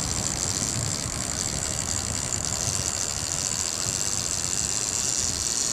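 A boat's outboard motor idling steadily, a low even rumble with a constant high hiss over it.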